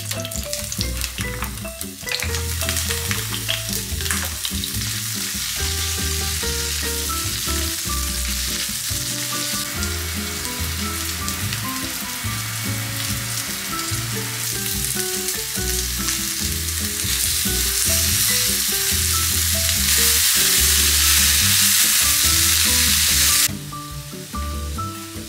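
Eggplant, bell pepper and mushroom pieces sizzling in hot oil in a nonstick frying pan as more pieces are added. The sizzle grows louder and then cuts off sharply near the end. Soft background music with a bass line plays underneath.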